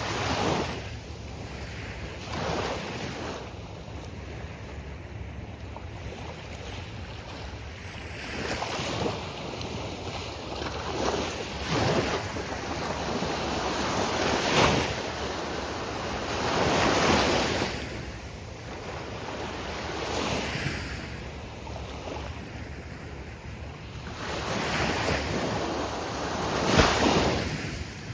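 Gulf surf breaking on a sandy beach, each wave swelling into a loud rush and washing back, one every few seconds.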